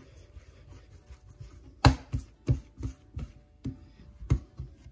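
Hands rounding a ball of bread dough on a countertop: a string of short taps and slaps of palm and dough against the counter, about eight to ten at uneven spacing, starting about two seconds in, the first the loudest.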